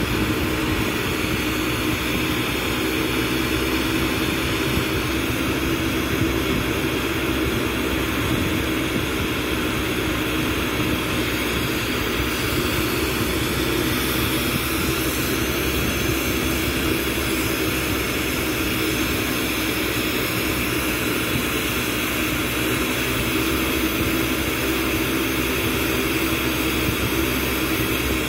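Glassblowing bench torch burning steadily with glass tubing held in its flame: a continuous, even rushing noise with a faint steady hum under it.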